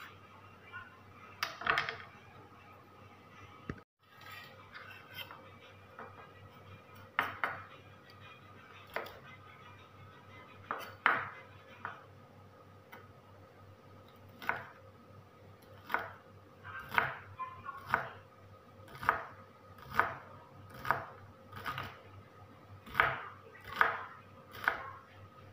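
Kitchen knife chopping a bunch of yardlong beans on a wooden cutting board: scattered knocks at first, then a steady chop about once a second from midway on.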